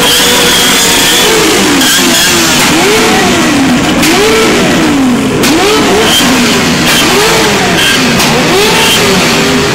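An engine revved up and down over and over, its pitch rising and falling about once a second.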